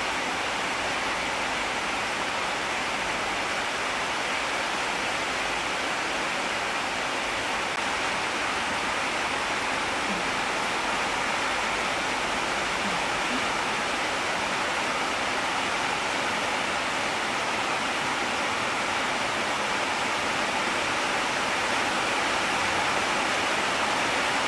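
Steady, even rushing hiss with no pauses or changes.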